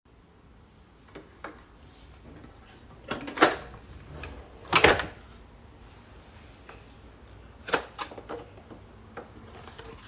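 Plastic clicks and knocks from the bag compartment of a Philips Performer Active canister vacuum cleaner as its lid is opened and the dust bag and blue bag holder are handled: two loud knocks a few seconds in, then a quick run of three clicks near the end.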